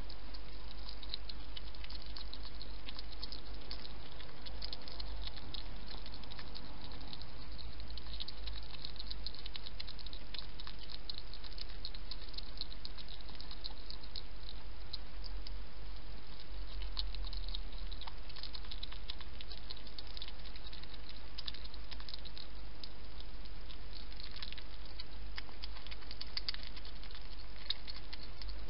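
Wild hedgehog feeding at a dish: a steady, irregular run of small wet clicks and smacks from its mouth as it eats and laps.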